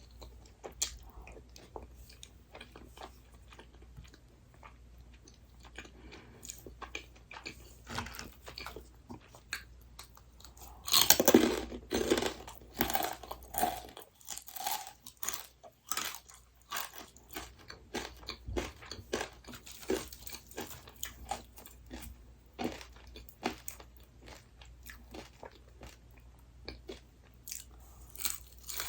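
Close-up eating sounds: a person biting and chewing crunchy food, with many small crunches and mouth clicks and one louder run of crunching about eleven seconds in.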